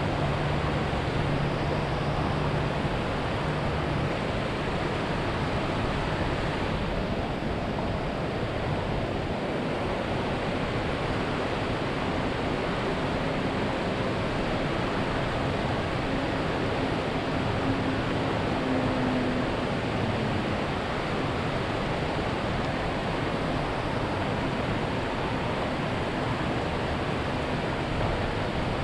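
Steady rushing noise of wind and flowing river water, with a faint low hum at the start and again in the middle.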